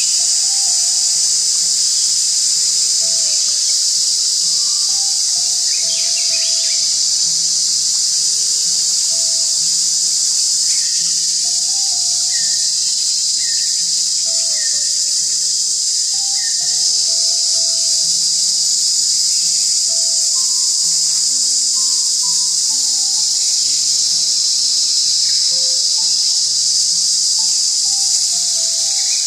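Dense, steady, shrill chorus of crickets and other insects. Soft background music of slowly changing notes lies beneath it, and there are a few short chirps about halfway through.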